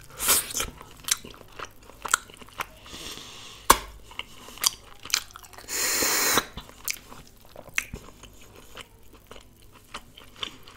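Close-miked eating of mutton marrow bone (nalli): wet chewing, lip smacks and sharp clicks, with one longer, loud sucking slurp about six seconds in as the marrow is sucked from the bone.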